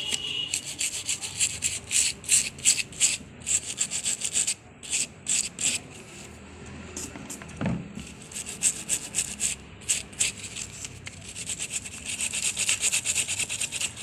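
Brisk back-and-forth scrubbing of a Xiaomi Redmi 5A phone circuit board soaked in isopropyl alcohol, to wash off flux after the old charging port was desoldered. The scrubbing runs at about four strokes a second, pauses briefly in the middle, then picks up again.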